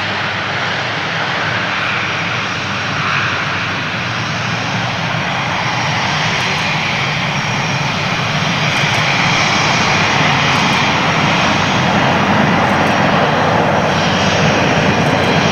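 Airbus A400M Atlas's four TP400 turboprop engines at takeoff power as the aircraft lifts off and climbs away: a loud, steady drone with a faint high whine, growing slightly louder in the second half.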